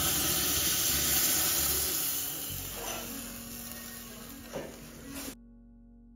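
Hot tempering oil with hing (tadka) sizzling as it is poured into a pot of curry. The sizzle dies away slowly and cuts off abruptly near the end, leaving faint music.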